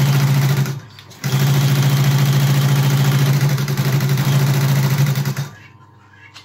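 Industrial sewing machine stitching heavy canvas: a short run that stops about a second in, a brief pause, then a longer steady run of about four seconds with an even rapid stitch rhythm, stopping near the end.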